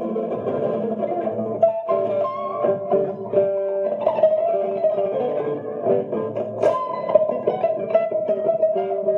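Guitar fitted with harp strings, played with a pick: minor-key chords and single notes ringing into one another, with sharp pick attacks now and then.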